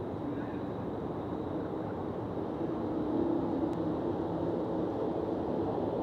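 Steady low rumble of distant engines, with a faint hum that swells a little about halfway through.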